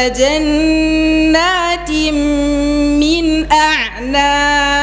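A man's voice chanting Qur'an recitation in a melodic tajweed style, holding long drawn-out notes. There are ornamented turns in pitch about a second and a half and three seconds in, and a brief break with a swooping glide about three and a half seconds in before the next held note.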